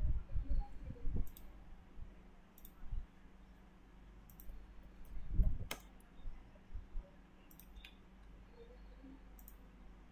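Computer mouse clicks, one every second or two, with a few dull low thumps in between; the loudest is a thump followed by a sharp click about five and a half seconds in.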